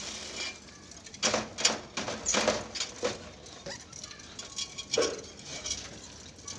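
Nest litter being scraped and shaken out of a clay lovebird nest pot: a string of short, irregular rustling scrapes.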